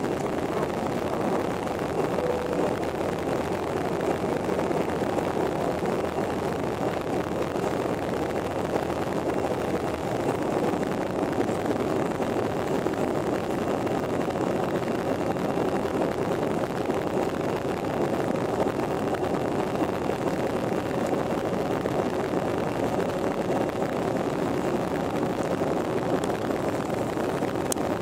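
Jet airliner's engines at takeoff and climb power heard from inside the passenger cabin: a steady, even noise with a faint steady hum in it.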